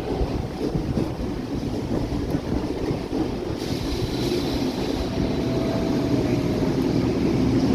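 Electric suburban passenger train rumbling at a station platform, slowly getting louder, with a hiss coming in about halfway through.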